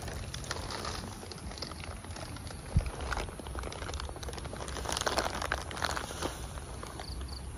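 Irregular rustling and crunching in grass and leaves around a foraging young macaque, with one sharp knock nearly three seconds in.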